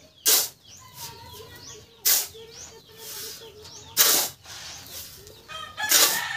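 Steel shovel scraping into and turning over a dry sand-and-cement mix: four strokes about two seconds apart. Faint bird calls sound between the strokes.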